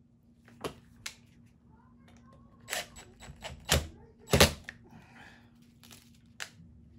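Tools and small metal wiring parts being handled on a workbench: a string of separate sharp clicks and knocks, the loudest a little over four seconds in.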